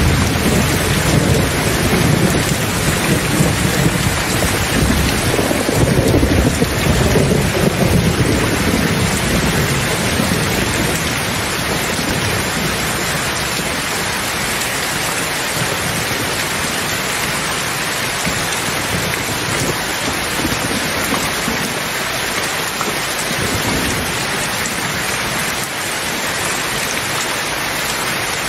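Steady heavy rain with a low, rolling rumble of thunder. The rumble is strongest in the first third and fades out about ten seconds in, leaving the even hiss of the rain.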